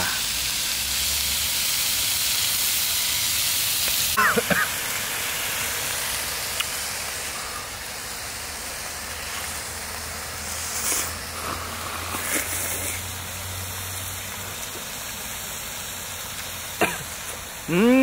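Raw pork belly sizzling in a frying pan, a steady hiss that grows a little fainter about halfway through.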